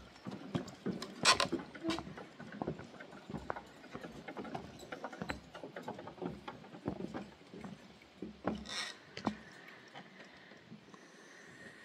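Footsteps on the wooden planks of a suspension bridge: irregular knocks and clunks of boards underfoot, with two louder clacks, one about a second in and one near nine seconds.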